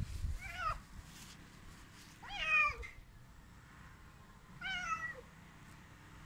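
A cat meowing three times, about two seconds apart. Each meow falls in pitch at its end, and the middle one is the loudest.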